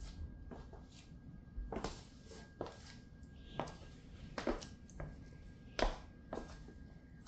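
Stiletto heels of patent-leather boots clicking on a hard floor as she steps about slowly: irregular sharp taps, roughly one or two a second.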